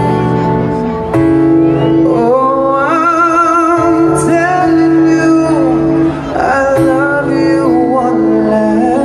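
Live band performance heard from the audience: a male singer holding long notes with a wavering pitch over sustained band chords.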